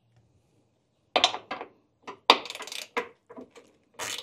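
A 10 mm socket ratchet clinking and clicking against metal as a bolt is worked loose: a string of irregular sharp metallic clicks starting about a second in.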